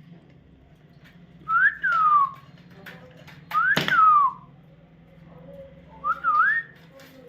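Three clear whistles in a wolf-whistle pattern, each rising briefly and then gliding down; the last one rises with a wiggle. A sharp click comes during the second whistle.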